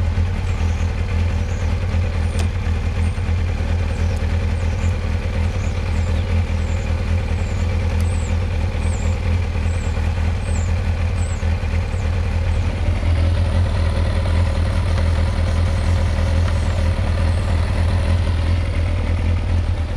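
Kawasaki sports motorcycle engine idling steadily with the clutch lever tied in, run this way to free up clutch plates that have stuck from standing.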